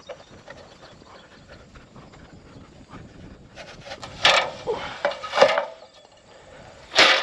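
A ladder being handled and set in place: faint rustling and small knocks, then three short, loud scraping clatters, about four, five and a half and seven seconds in.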